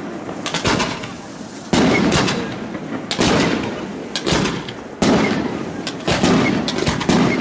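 Aerial firework shells bursting: about seven loud bangs, roughly one a second, each trailing off in an echoing rumble.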